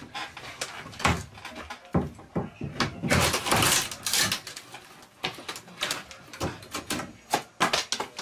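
Old wooden ceiling lining boards being pried off their joists with a pry bar: a string of sharp wooden knocks and cracks, with a noisy rasp lasting about a second around three seconds in.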